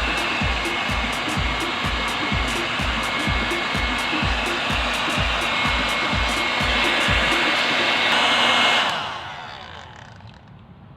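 Homemade mini vacuum cleaner's small battery-powered motor spinning a salvaged hair-dryer fan, running with a steady whir and a fixed high whine. About nine seconds in it is switched off and winds down. Background music with a steady beat plays under it for most of the time.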